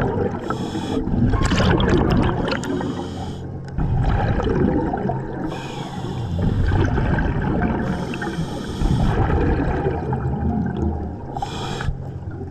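Scuba diver breathing through a regulator underwater: short hisses of inhaled air alternating with long, gurgling rumbles of exhaled bubbles, several breaths in a row.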